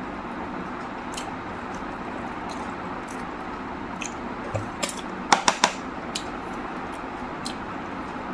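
Eating sounds of a man eating mutton curry and rice: scattered wet clicks and smacks of chewing, with a quick run of three louder clicks about five seconds in, over a steady background hiss.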